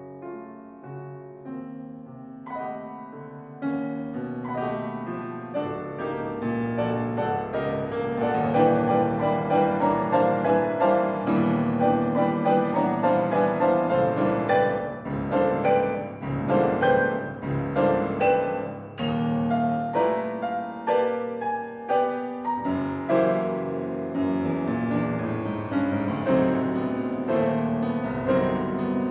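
Concert grand piano played solo: it starts softly, grows into loud, dense chords and runs about eight seconds in, eases back briefly about two-thirds of the way through, then turns loud again.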